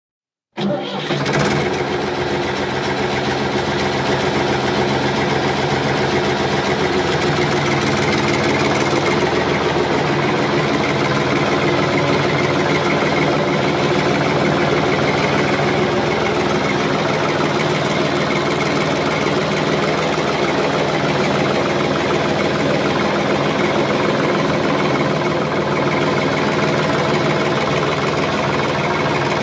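Engine running steadily at a constant speed, cutting in abruptly just under a second in after a moment of silence.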